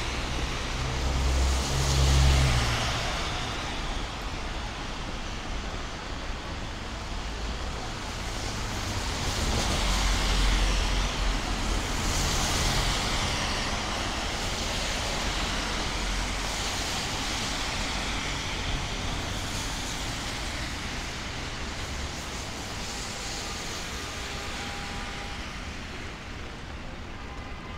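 City street traffic on rain-wet pavement: vehicles passing with tyre hiss and engine rumble over a steady wash of traffic noise. Two passes swell louder, about two and about ten seconds in.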